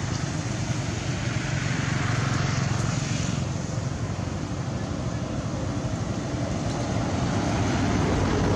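Steady outdoor background noise with a low rumble underneath and no distinct events.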